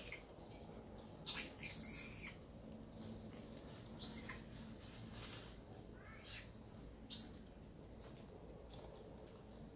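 Four high-pitched squeaky animal calls with sliding pitch: a longer, louder one lasting about a second near the start, then three short ones spread over the next five seconds.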